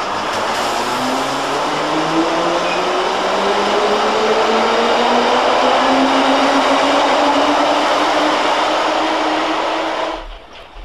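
London Underground D stock train accelerating away from a station platform: a whine from the traction motors and gearing rises steadily in pitch over loud wheel and rail noise. The sound cuts off suddenly near the end.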